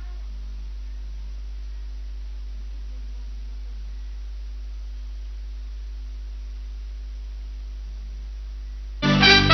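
A steady low electrical hum with nothing else over it, then music starting suddenly near the end.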